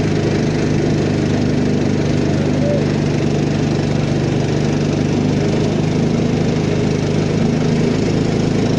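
Peque-peque boat's small single-cylinder long-shaft engine running steadily with the boat under way, at an even pitch and level.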